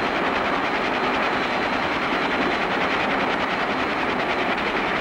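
Sound effect of the flying bus's engines in flight: a steady mechanical rattling drone with a fast, even pulse.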